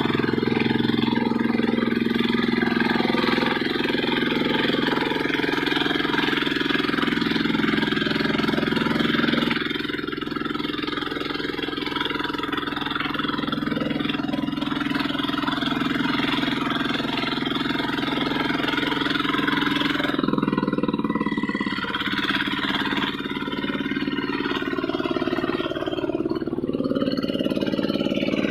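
Two-wheel hand tractor's single-cylinder diesel engine running steadily while plowing a wet rice paddy. Its note shifts slightly about ten seconds in and again about twenty seconds in.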